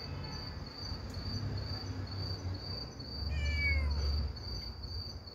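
A baby kitten mews once, about three seconds in: a single high, falling cry. Insects chirp steadily with an even pulse throughout, and a low rumble swells under the mew.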